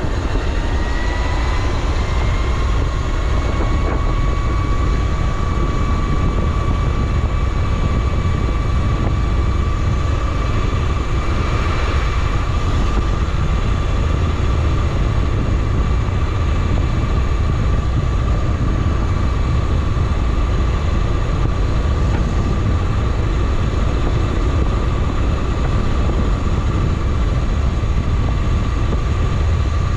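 Wind buffeting the microphone over the steady whine of the Razor RSF650 electric motorcycle's motor, which rises a little in pitch over the first few seconds as the bike speeds up, then holds at cruising speed.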